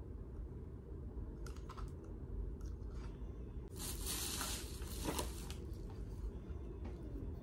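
Packaging being handled and torn open by hand: a few light clicks, then a rustling tear of about two seconds just past the middle.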